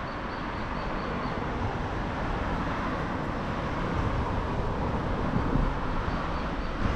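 Steady outdoor background noise, a low rumble with hiss, with a few faint high chirps near the start and again near the end.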